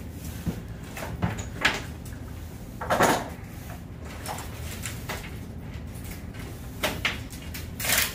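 Items being handled and set down on a glass counter top: a series of short clunks, scrapes and rustles, the loudest about three seconds in and again near the end.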